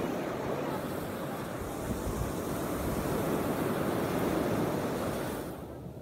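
Small waves breaking on a sand beach: a hiss of surf washing up the shore that swells and then dies away near the end.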